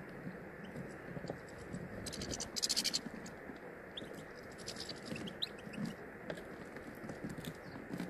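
European goldfinches pecking and cracking sunflower seeds on a bird table: scattered small clicks and scratches of beaks in seed. About two seconds in there is a quick rattling burst, and later a few short high chirps.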